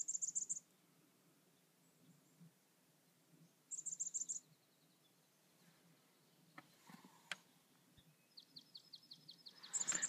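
Small songbirds calling: a quick, very high twittering burst at the start and another about four seconds in, then a run of lower, evenly spaced ticking notes near the end, closed by one more high burst. A couple of faint clicks come around seven seconds in.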